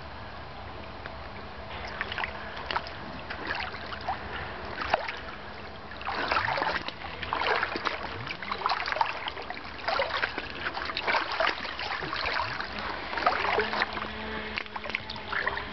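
Shallow river water babbling and splashing as it runs fast over a gravel bed, growing louder about six seconds in.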